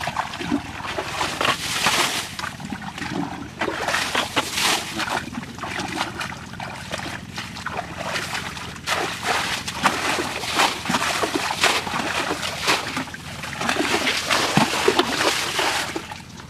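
Water splashing and sloshing in irregular surges, over a steady background of moving water.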